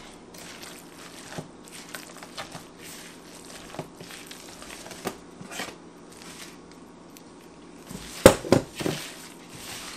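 Gloved hands squishing and kneading raw ground beef with egg, milk and breadcrumbs in a plastic mixing bowl, with scattered soft clicks and a couple of louder knocks about eight seconds in.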